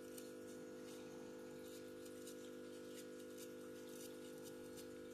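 Stiff-bristled brush scrubbing dust out of a laptop's internals: short, faint scratchy strokes about twice a second, over a steady low hum.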